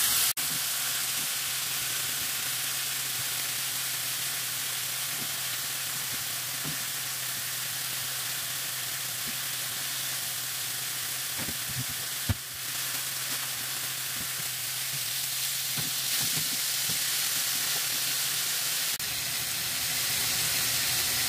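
Slices of pork and garlic cloves sizzling in a hot frying pan: a steady frying hiss. One short knock a little past halfway.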